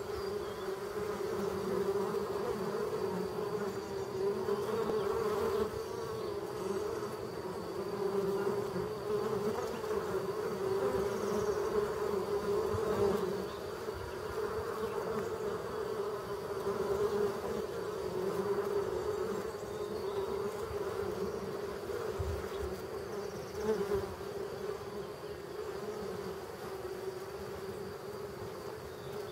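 Honeybees humming steadily at a hive entrance: the colony's drone from inside the box, with bees flying in and out close by.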